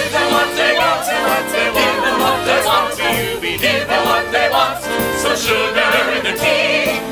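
Live musical-theatre pit band playing an up-tempo show tune, with sharp drum hits and ensemble voices singing along.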